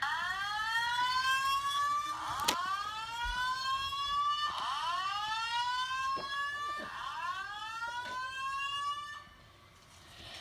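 Fire alarm speakers on a Simplex 4100ES system sounding a rising whoop tone, the system in alarm after a pull station has been pulled. There are four whoops, each a rising sweep of a little over two seconds, the speakers slightly out of step so each whoop sounds doubled, and they stop about nine seconds in. A sharp click comes about two and a half seconds in.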